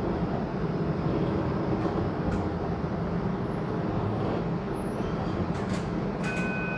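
TTC Flexity Outlook streetcar running along its track, a steady low rumble heard from on board. A steady two-note electronic tone starts near the end.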